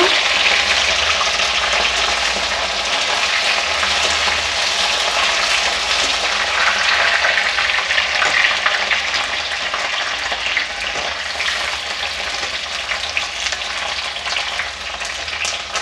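Cut okra sizzling in hot mustard oil in an aluminium kadhai, turned with a metal spatula, with small scattered crackles in the steady sizzle. It grows gradually quieter toward the end.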